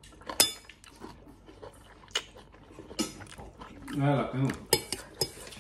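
Eating noodles with a metal fork and knife: chewing and slurping, with sharp ringing clinks of cutlery against the plate, the loudest about half a second in. A short two-part vocal sound comes about four seconds in.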